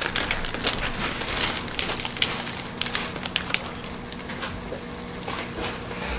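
Plastic budae-jjigae ramyeon packets crinkling as they are torn and shaken out over the pot, a quick run of crackling clicks that thins out after about three and a half seconds.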